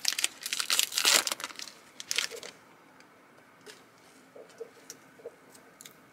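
Foil wrapper of a hockey trading-card pack crinkling and crumpling in the hands for about two and a half seconds, then only a few faint taps.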